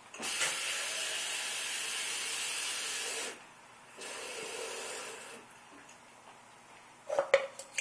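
Kitchen tap running water, shut off after about three seconds and run again more softly for a second and a half, with a few knocks of a pot or can near the end.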